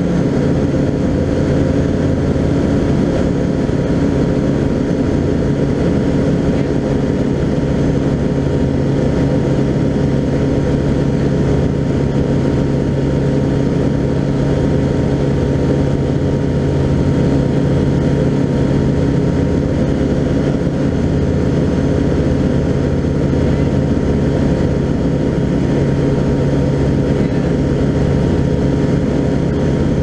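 Skyranger Classic microlight's engine and propeller running steadily, heard from inside the cockpit in flight.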